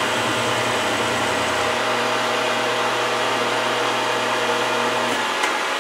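An old Oliver woodworking lathe running steadily while turning metal round stock down to diameter: an even whir with a low hum that drops out about five seconds in.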